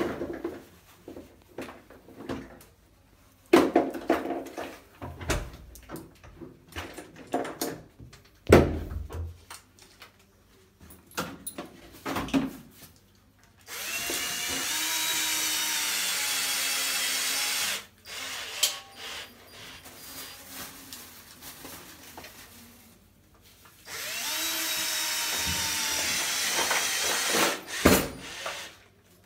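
A 12-volt cordless drill-driver runs twice for about four seconds each, driving screws into the hanging bracket at the top of a wooden bathroom cabinet. Before that there are scattered knocks and clatter from handling the cabinet, and a sharp knock comes near the end.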